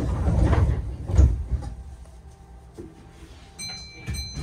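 Keihan train's running noise heard from inside the cab: a low rumble that fades about a second and a half in, then a faint steady high tone and a couple of clicks near the end.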